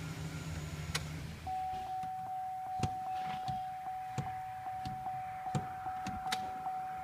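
Pickup truck engine idling, then shut off about a second in with a click. A steady electronic warning chime from the dashboard then sounds on, with several sharp clicks.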